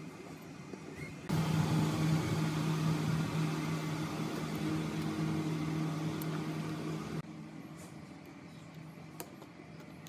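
A small motor runs with a steady hum for about six seconds, switching on abruptly a little over a second in and cutting off abruptly, over a fainter steady hum.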